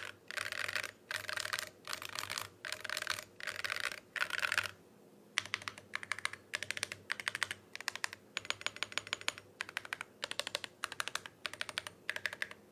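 Custom mechanical keyboard with full metal keycaps being typed on fast. In the first half the clicks come in quick runs of about half a second with short gaps between them. After a brief pause about five seconds in, the key presses come more evenly spaced and separate.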